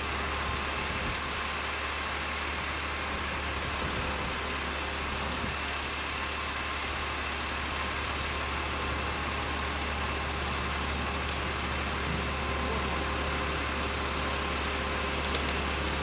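Crane's engine running steadily at a constant idle, with a low, even hum.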